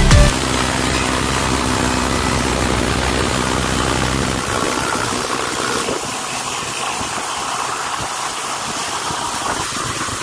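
Steady mechanical drone with a hiss. A low hum drops away about halfway through, leaving a lighter steady hiss.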